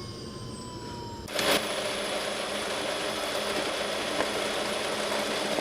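A machine starts up about a second in and runs with a steady mechanical whir and hum, after a quiet start with a faint falling tone.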